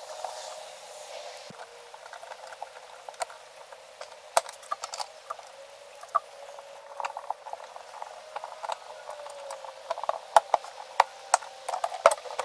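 Hard saddlebag of a Harley-Davidson Road Glide being handled and fitted back onto the motorcycle: scattered light clicks and knocks of the bag, lid and latch, growing more frequent and sharper near the end.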